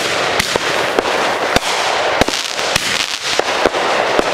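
Fireworks going off in a dense barrage: a continuous crackling hiss with sharp bangs coming irregularly, two or three a second.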